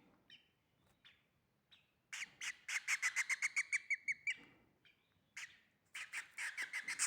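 Baby bird giving rapid, repeated begging chirps while being hand-fed: a fast run of sharp calls from about two seconds in, a couple of single calls, then another quick run near the end.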